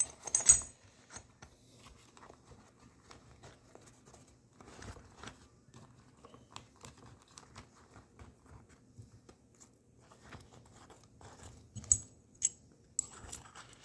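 A tool bag being handled: rustling of the bag with scattered clicks and clinks of metal tools as a small pouch of tools is packed back in. The sharpest knocks come about half a second in and again near the end.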